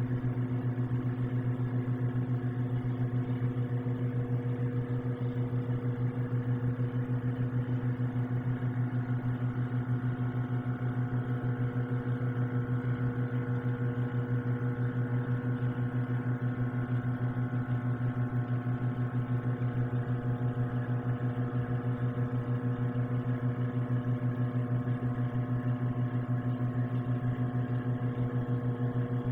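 Microwave oven running while heating: a steady low hum with a few higher tones above it and a slight even pulsing in level.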